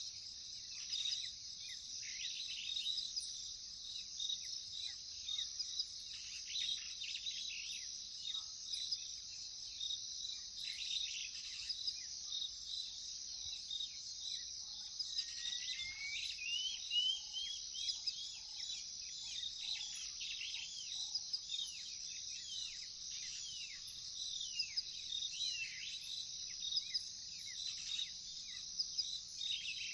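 A steady, high chorus of crickets with many birds calling over it in quick, downward-sweeping notes. About halfway through, one bird gives a rising whistled glide.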